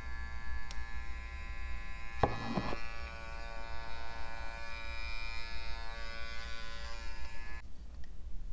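Philips Satinelle wet and dry epilator's motor running with the epilating head removed: a steady electric whine of several even tones that cuts off abruptly near the end. A short knock about two seconds in.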